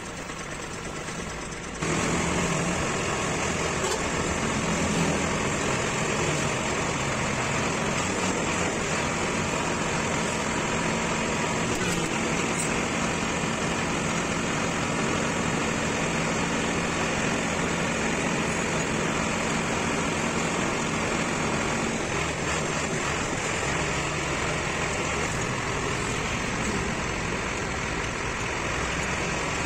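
Steady vehicle noise that comes in abruptly about two seconds in and holds evenly.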